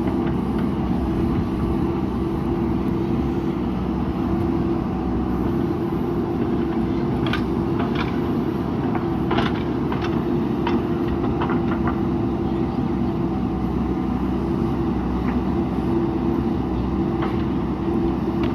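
JCB backhoe loader's diesel engine running steadily as it works, with a few sharp metallic clanks about halfway through.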